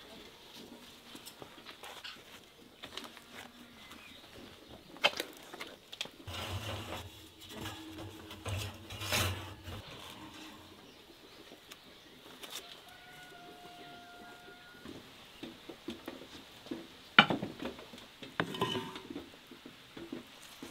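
Scattered knocks and clinks of cookware being handled, with a brief low rumble about a third of the way in and one sharp clink about three-quarters of the way through.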